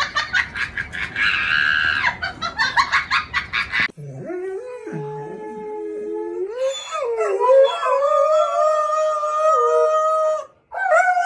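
A dog howling in long drawn-out howls that bend in pitch and then hold steady; one howl breaks off about ten seconds in and a higher one starts straight after. The first few seconds before the howling hold a fast string of short choppy sounds.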